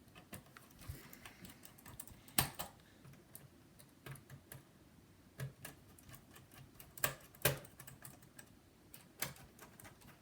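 Scattered small plastic clicks and taps as the Dell Inspiron 1545's plastic bottom cover panel is pressed into place and screwed down, with a few sharper knocks among them.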